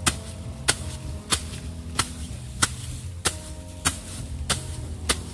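A jumbo-sized steel sickle (arit) hacking into a heap of dry rice straw, nine sharp chopping strokes at an even pace of about one every two-thirds of a second.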